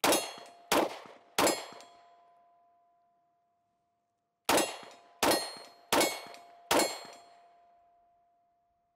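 Seven 9mm pistol shots from a Taurus GX4 XL, each answered by the ring of a struck steel target. Three shots come in quick succession, then after a pause of about three seconds four more come about two-thirds of a second apart. The clear ring hangs on after each hit.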